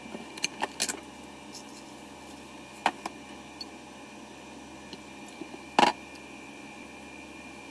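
Plastic food container and plastic water bottle handled on a counter: a few light clacks and knocks, the loudest near the end, over a steady background hum with a faint high whine.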